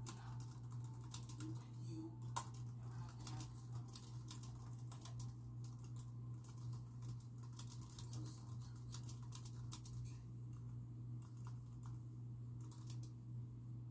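Steady typing on a computer keyboard: rapid key clicks, thinning to a short lull about ten seconds in before picking up again.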